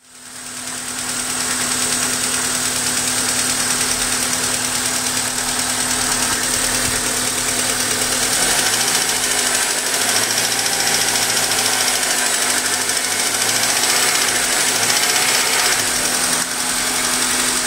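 Honda Accord engine idling with a somewhat loud, steady ticking, fading in at the start. The owner hopes an oil change and new gasket and oil seals will cure the tick, and suspects the pistons may also be loose.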